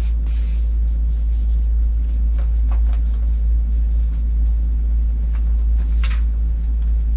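Steady low rumble throughout, with faint rustles and crinkles of a sheet of craft paper being handled and folded, including a brief hiss near the start and a sharper crinkle about six seconds in.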